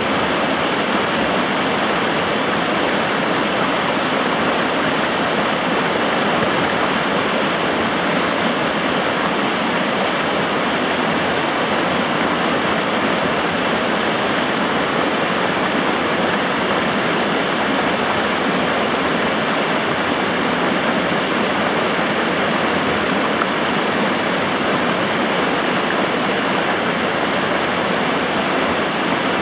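The Firehole River rushing steadily over shallow riffles: a constant, unchanging sound of running water.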